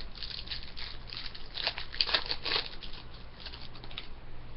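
Hockey trading cards handled by hand: a run of quick, crisp papery flicks and rustles as cards are slid off one another, busiest about midway through.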